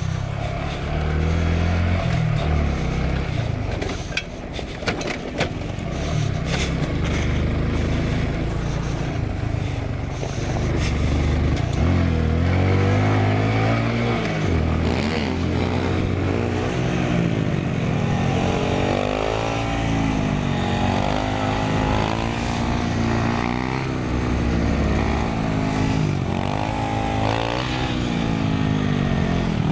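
Small single-cylinder mini motorcycle engine heard from the rider's seat, revving up and dropping back again and again as it rides through the gears, with wind rushing past. Several sharp knocks and rattles come a few seconds in, as the bike rides over rough dirt.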